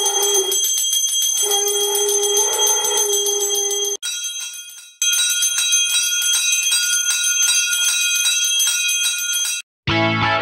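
Brass puja hand bell rung rapidly, a fast continuous ringing, with a lower held tone sounding twice under it in the first few seconds. The ringing breaks off about four seconds in and resumes a second later at a different pitch, then stops and guitar music begins near the end.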